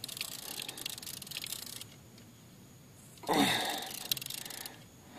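A person breathing out hard while straining against a heavily bent fishing rod, one loud breath a little past the middle that fades over about a second. Before it comes a faint ticking hiss.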